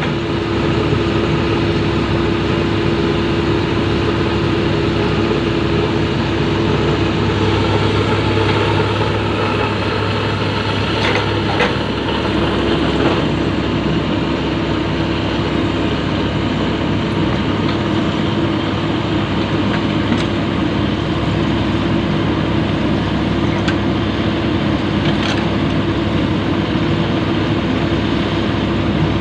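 Komatsu PC-200 excavator's diesel engine running steadily, with a few faint sharp clicks or knocks.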